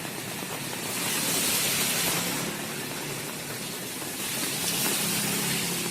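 Heavy rain hissing down, with traffic on the wet road; the hiss swells twice as vehicles pass.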